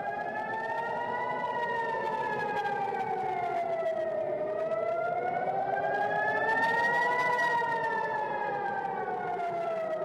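Civil-defence air-raid siren wailing, its pitch rising and falling slowly in a cycle of about six seconds and peaking twice: an air-raid warning to take shelter.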